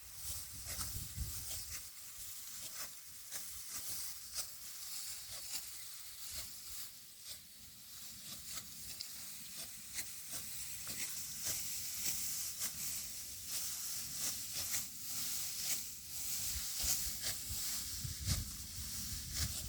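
Dry rice stalks rustling and crackling as they are cut and gathered by hand: an irregular run of many crisp snaps and swishes over a steady high hiss.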